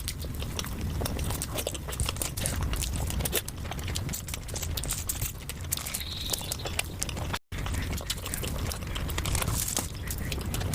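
Close-up eating sounds: chewing with many small wet mouth clicks. The sound cuts out completely for a moment about seven seconds in.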